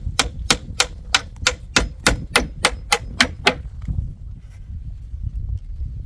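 Hammer driving nails into the wooden planks of a chicken-coop roof with quick, even strikes, about three a second, which stop a little past halfway.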